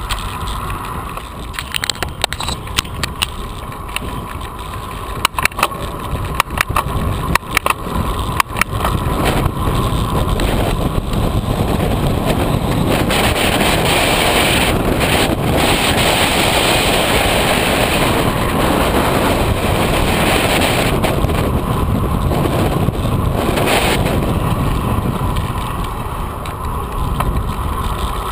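Wind rushing over the microphone of a camera on a moving road bike, with tyre noise on pavement. A run of sharp clicks and knocks comes in the first several seconds, then the wind rush grows louder and steadier for a stretch of about twelve seconds before easing near the end.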